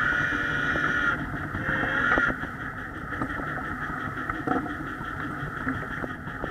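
Backyard ride-on miniature train running, heard from its tender: a steady mechanical whine with scattered clicks of the wheels on the track. It is louder for the first two seconds, then eases off.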